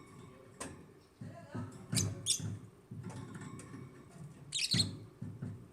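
African lovebirds chirping: two sharp, shrill chirps about two seconds in and a quick burst of chirps near the end, over low background noise.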